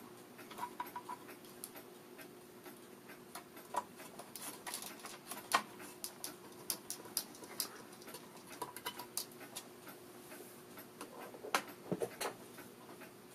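Light, irregular clicks and scrapes of a precision screwdriver turning small screws to fasten a circuit board into a tape deck's metal chassis, over a faint steady hum.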